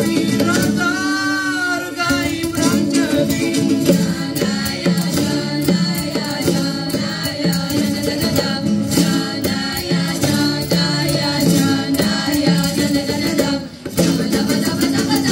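Georgian folk song played live by a large ensemble: many acoustic guitars strummed together, voices singing, and hand percussion keeping a steady beat. The music drops away briefly near the end, then comes back in.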